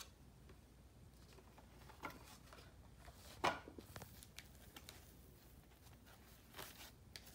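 Faint handling of tissue paper and a cardboard gift box as they are unpacked, with a few brief rustles and one sharper one about three and a half seconds in.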